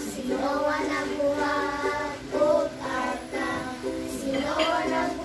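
A small group of young children singing a song together in unison, sung in phrases with short breaths between, over a lightly strummed ukulele.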